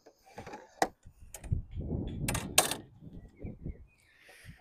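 Sheet lead being handled and trimmed with hand tools: an irregular run of sharp clicks, taps and low knocks, with a short scrape near the end.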